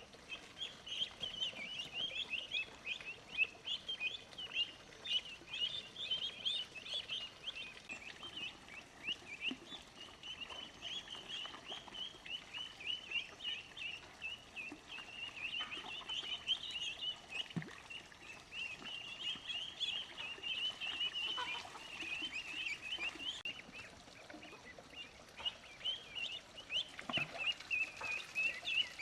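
A group of chicks peeping continuously: many short, high cheeps overlapping without pause. There are a couple of faint knocks.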